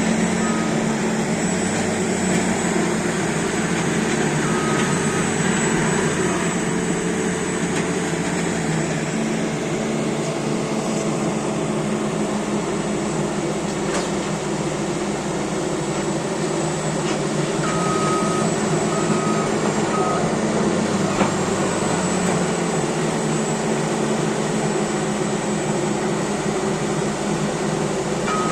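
Caterpillar D8T bulldozer's diesel engine running steadily under work, with its reversing alarm beeping in short series a few times as it backs up.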